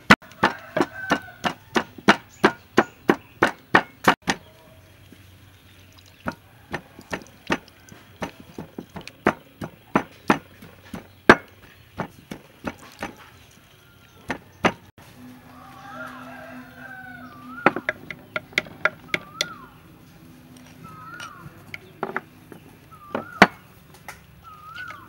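A wooden pestle pounding in a clay mortar, with quick, regular strikes about three a second for the first four seconds, then slower, scattered strikes. In the second half a bird calls repeatedly, a short chirp every second or two.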